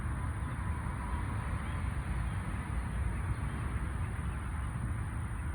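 Steady hum of distant freeway traffic, a constant low rumble with no distinct events.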